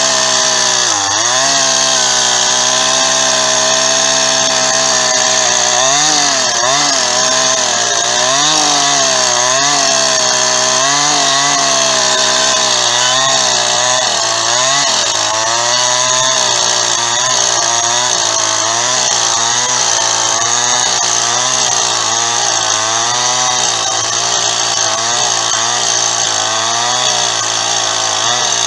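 Two-stroke chainsaw running hard without a break, its engine pitch dipping and rising again over and over.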